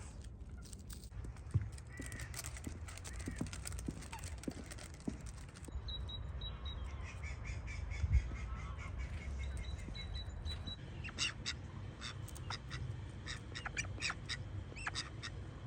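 Ducks quacking and other birds calling in short bursts, over a low steady rumble.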